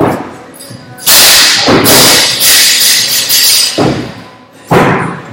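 Feet landing with thuds on a wooden plyo box during box jumps. About a second in comes a loud crash as a loaded barbell is dropped from overhead onto the rubber gym floor, with a couple of seconds of bouncing and rattling. Two more box-jump landings follow near the end.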